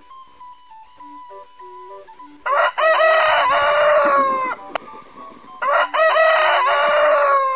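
A boy's voice imitating a rooster's crow, twice, each crow about two seconds long and falling away at the end.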